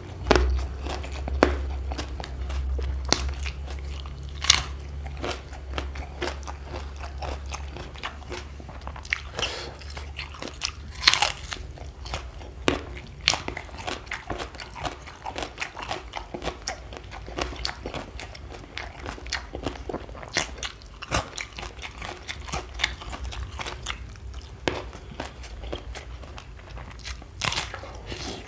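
Close-up biting and chewing of crunchy food, with irregular sharp crunches throughout and one especially loud crunch about eleven seconds in. A low steady hum sits underneath for roughly the first ten seconds.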